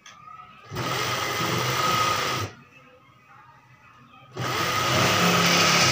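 Electric sewing machine running in two bursts of about two seconds each, with a short pause between, as it stitches piping along a fabric edge.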